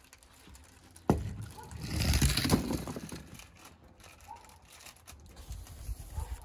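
A die-cast toy car sent down a ramp into a tub of plastic play balls. A sudden knock about a second in, then a low rustling for about two seconds, then faint light clicks.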